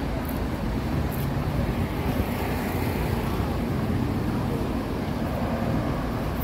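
Steady city street traffic noise, the low even rumble of passing cars.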